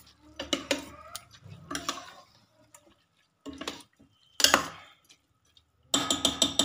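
Steel spoon stirring wet, soaked rice and masala in a stainless-steel pressure cooker: separate scrapes and clinks of metal on metal with short pauses between them, then a quick run of scraping strokes near the end.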